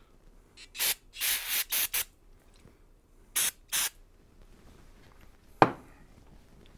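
Aerosol carburetor cleaner sprayed through the can's straw to flush out a carburetor jet: a quick run of short hissing bursts about a second in, then two more about three and a half seconds in. A single sharp knock follows near the end.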